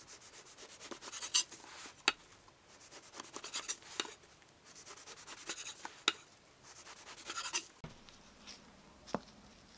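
Knife sawing through the crusts of a stack of white sandwich bread on a wooden cutting board: runs of quick scratchy strokes, with a sharp tap of the blade on the board about every two seconds.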